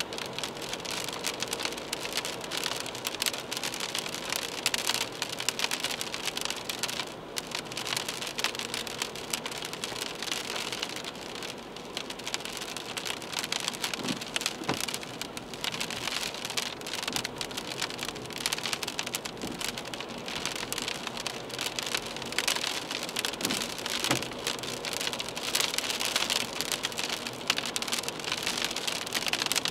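Heavy rain hitting the windshield and roof of a moving car, heard from inside the cabin: a dense, continuous crackle of drop impacts that swells and eases.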